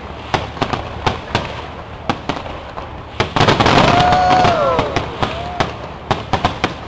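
Aerial fireworks display: a rapid string of sharp bangs and crackles from bursting shells. About halfway through comes a denser, louder stretch carrying several falling whistling tones.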